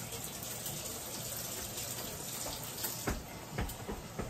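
Ground chicken and onions sizzling in a skillet, a steady hiss, with a few light knocks about three seconds in.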